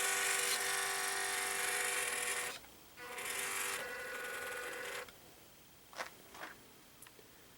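Small electric motor and gear drivetrain of an FMS 1/18-scale Toyota FJ Cruiser RC crawler whining as it drives, a noisy drivetrain. It runs in two spells, cutting off about two and a half seconds in and again about five seconds in, with a few faint ticks near the end.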